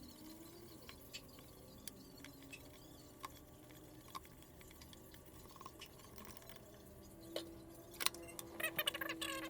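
Whole wheat bread dough being mixed in a bowl while bread flour is worked in: faint sticky squishing and scattered light clicks. Near the end a steady low hum comes in, and a run of louder clatter follows it.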